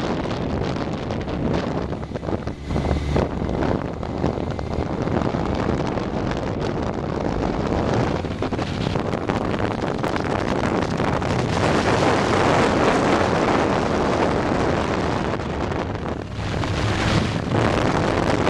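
Wind rushing over the microphone of a camera on a moving motorcycle, with the motorcycle's engine and road noise beneath it. The rush grows a little louder about twelve seconds in and dips briefly near the end.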